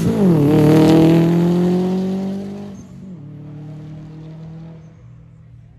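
Subaru Impreza's flat-four engine accelerating hard away. The revs drop at a gear change, climb, and drop again at a second change about three seconds in, with the sound fading as the car pulls into the distance.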